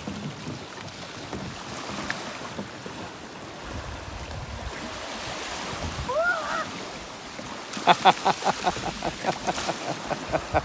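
Small waves washing in over a shingle shore and around rocks. About six seconds in there is a short gliding call, and from about eight seconds a quick run of short pulses that fades away.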